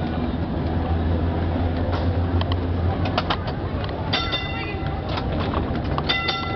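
Heritage tram running along its street track, heard from inside the car: a steady low rumble with a few clacking knocks. Its warning bell rings in two short bursts, about four seconds in and again near the end.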